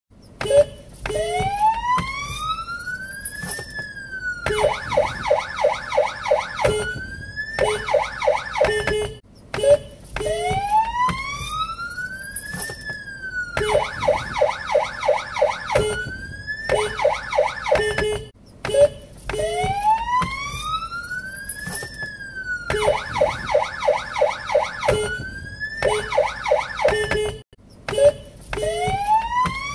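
Cheshire police siren unit fitted in a car, cycling through its tones: a wail that rises over about three seconds, peaks and drops, then a fast warbling yelp. The whole sequence repeats about every nine and a half seconds, three times over.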